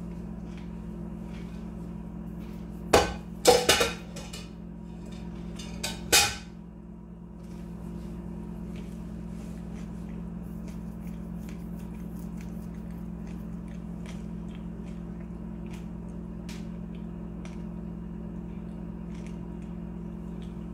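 Steady low hum, broken by a few loud knocks and clatters about three to four seconds in and again about six seconds in, with faint scattered ticks afterwards.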